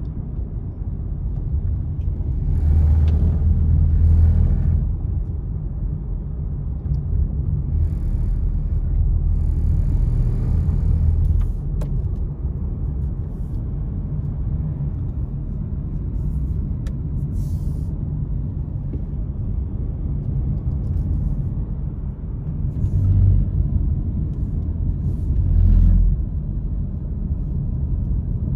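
Steady low rumble of a car's engine and tyres, heard inside the cabin while it drives on a snowy, wet mountain road. A few louder swells of hiss rise over it, the longest early on and again around ten seconds in.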